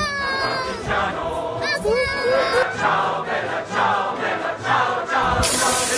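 Background music with a choir singing. About five seconds in, a loud, bright hiss comes in over the music.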